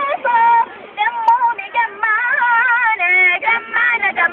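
A girl singing a nasheed alone, in a high voice with long held notes that waver in pitch, broken by short breaths.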